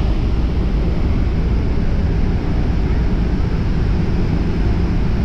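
Loud, steady low rumble of the falls and churning whitewater, with wind buffeting the microphone.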